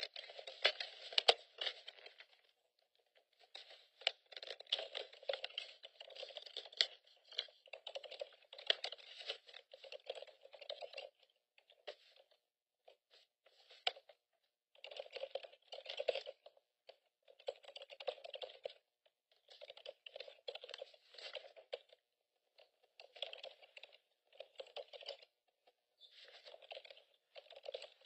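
Faint typing on a computer keyboard, in runs of quick key clicks a second or two long broken by short pauses.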